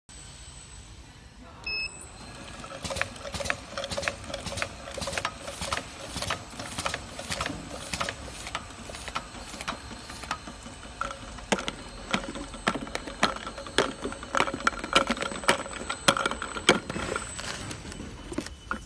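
Automatic sticker labeling machine running, a steady hum with rapid repeated clacks, about two or three a second, as oval bottles pass through and are labeled. A short beep about two seconds in, before the machine starts.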